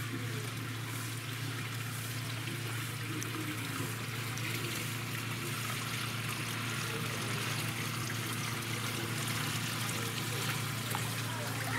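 Steady trickling and running of water in an otter pool, with a constant low hum underneath.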